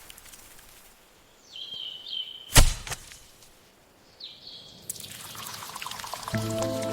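Light rain and dripping water with two short high bird chirps and one sharp, loud crack about two and a half seconds in; near the end the rain grows and music with held notes comes in.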